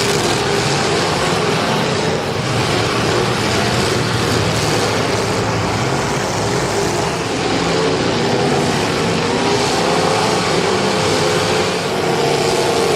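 Several demolition derby cars' engines running and revving together, a loud, steady mechanical din.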